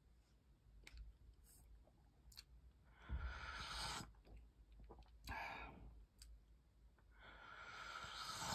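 Faint mouth sounds of a person drinking hot cocoa from a mug: small scattered clicks and three breathy sips or breaths, the last rising gradually near the end.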